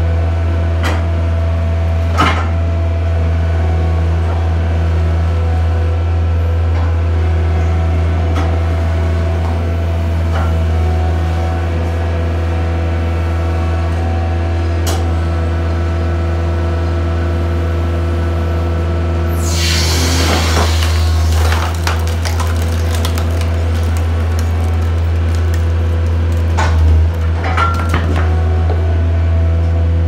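Mustang skid steer engine running steadily while its six-way wedge wood splitter works ash rounds. About two-thirds of the way in, a burst of cracking and splintering lasts a couple of seconds as a round splits, with a few sharp knocks earlier and a shorter clatter near the end.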